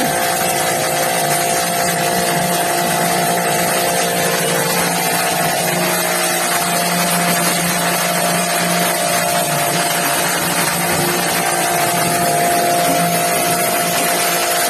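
A motor-driven machine running steadily with a strong, even hiss and a constant hum.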